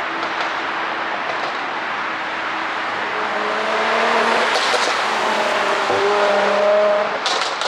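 Mercedes-AMG C43's twin-turbo V6 running hard, its engine note rising and falling, with short bursts of exhaust crackle about halfway through and near the end from its pop-and-bang ECU tune.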